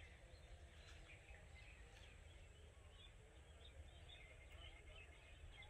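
Faint early-morning chorus of birds, with short chirps and twitters scattered through the whole stretch.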